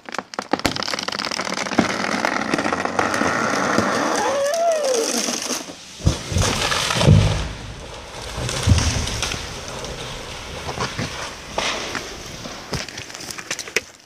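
A big fir tree falling: wood cracking and branches snapping and rushing for about five seconds, then heavy low thuds about six and nine seconds in as the trunk hits the ground. Scattered cracks of breaking limbs and settling debris follow.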